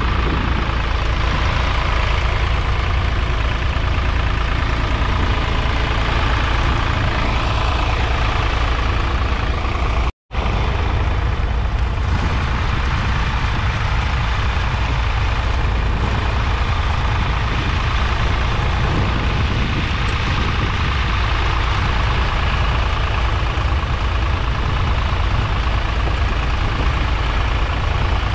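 1969 John Deere 820's 2.5-litre three-cylinder diesel engine running steadily under load, pulling a two-furrow mounted plough through the soil. The sound cuts out for a split second about ten seconds in.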